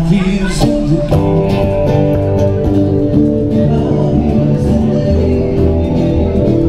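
A live band playing, with electric guitar and keyboard and a singer.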